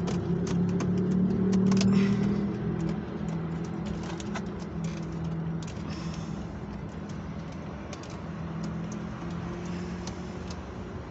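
Scattered small clicks and taps of plastic console trim pieces being handled and fitted back into place, over a steady low hum in the car's cabin that eases after about two seconds.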